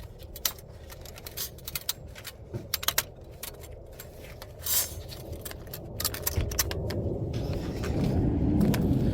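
Scattered light metallic clicks and clinks of exhaust parts and a gasket being handled during a catalytic converter swap. A low rumble builds up over the last three seconds.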